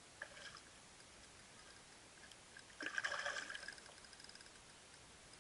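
Spinning rod and reel being handled: a brief faint click just after the start, then a burst of rapid clicking and rattling about three seconds in lasting under a second.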